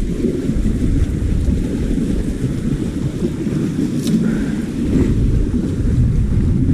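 Wind buffeting the microphone: a loud, uneven low rumble, with a single sharp click about four seconds in.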